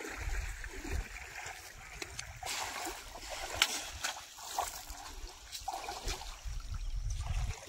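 Water splashing and sloshing as a person wades through a shallow muddy pool, with a few sharp clicks and a low rumble underneath.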